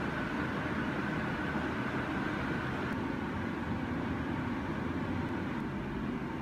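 Steady background hum and hiss with a low rumble, and a faint high tone that stops about three seconds in.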